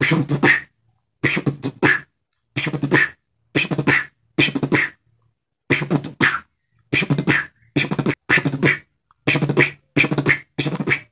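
Beatboxed drum-and-bass snare rolls: short groups of airy mouth-snare strokes repeated in a steady rhythm, about a dozen groups with brief silences between them.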